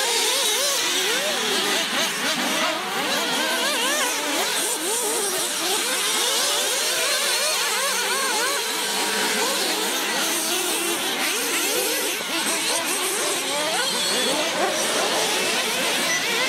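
Several radio-controlled off-road buggies racing, their small engines revving up and down without a break, with many overlapping engine notes rising and falling at once.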